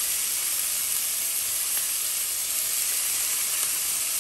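Raw beef chunks sizzling steadily in a hot oiled frying pan with onions and garlic, searing to brown.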